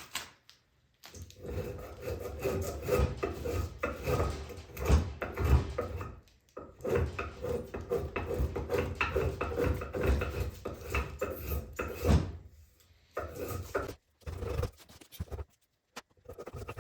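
Spokeshave shaving a juniper axe-handle blank: many quick scraping strokes in two long runs, then a few shorter strokes near the end.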